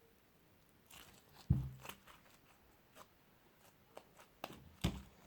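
Hands squishing and poking fluffy slime: scattered soft crackles and pops, with a dull thump about a second and a half in and another near the end.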